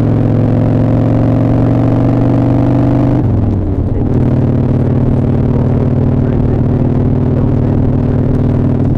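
Motorcycle engine under way, heard through a microphone inside the rider's leather jacket: its pitch climbs slowly in one gear, drops sharply about three seconds in as it shifts up, then holds steady in the next gear.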